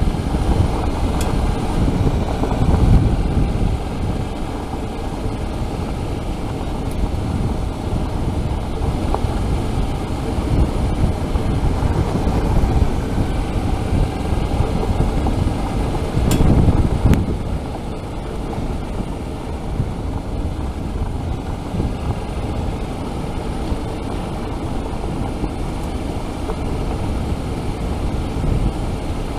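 Suzuki V-Strom 650 motorcycle riding along a gravel road: its V-twin engine runs under a steady rumble of tyre and wind noise. The rumble swells briefly twice, about two seconds in and again about halfway through.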